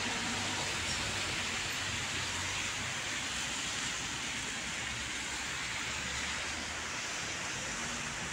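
Steady rain falling on the street and balcony, an even hiss, with a low hum of traffic on the wet road underneath.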